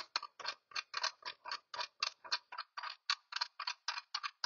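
Rapid, even clicking, about four to five clicks a second, from the toothed tool-rest adjustment of a WEN 8-inch bench grinder as its knob is turned to tighten it.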